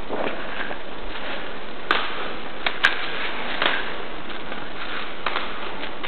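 Clothing and gear rustling against a body-worn camera's microphone over steady hiss, with a few sharp clicks about two, three and four seconds in.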